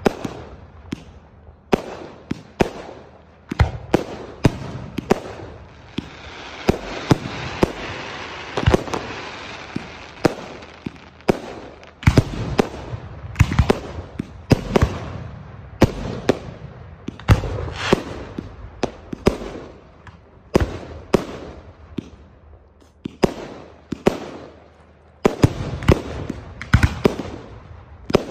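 Professional aerial fireworks display: shells firing and bursting in quick succession, dozens of sharp booms and bangs, often several a second. From about six to eleven seconds in, a steady hiss runs under the bangs.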